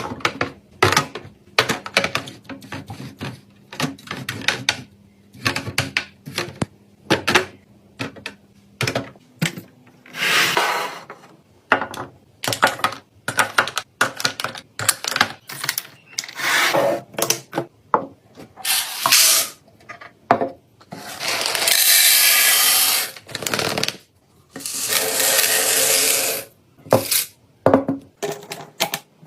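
Containers, lids and packaging being handled while a fridge is restocked: a quick run of sharp clicks and knocks, then several stretches of steady noise lasting a second or two each, with more clicks between them.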